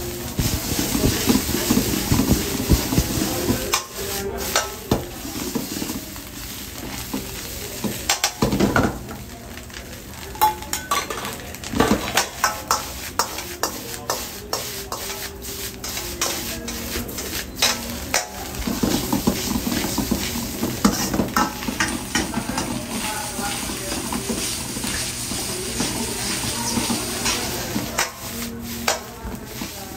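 Noodles sizzling in a hot wok while a long metal ladle scrapes and clanks against the steel pan, with many sharp ladle strikes throughout. A steady low hum runs underneath.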